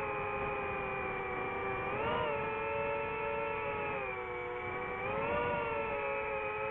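DJI FPV drone's motors and propellers whining, the pitch swinging up and down with the throttle: rising about two seconds in, dipping about four seconds in, then climbing again.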